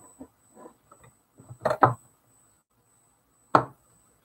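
A few sharp clicks and knocks of metal pliers being handled and clamped against a bench vise. Two come close together about two seconds in, and a single loud one comes near the end, with softer ticks between them.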